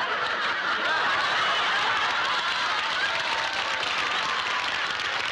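Studio audience laughing: one long, sustained laugh from a large crowd.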